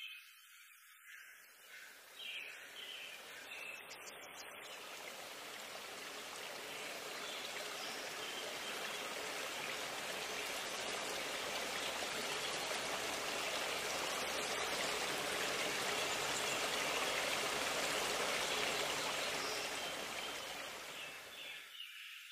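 Flowing river water, a steady rush that swells over the first several seconds, is loudest past the middle and fades out near the end, with faint high chirps at the start and end.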